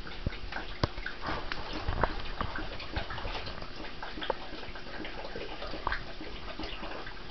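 Two dogs, a basset hound and a Jack Russell terrier, play-fighting: scuffling with scattered clicks and a few brief cries.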